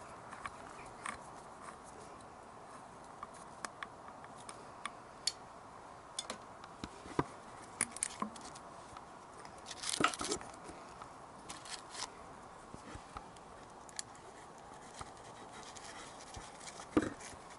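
Small clicks, ticks and scrapes of hands and a hand tool working at a motorcycle's carburettor-to-engine intake rubber, with a short burst of scraping about ten seconds in and a single knock near the end.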